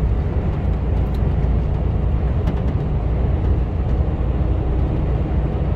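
Steady drone inside the cab of a Mercedes Actros HGV cruising at motorway speed: low engine hum mixed with tyre and road noise.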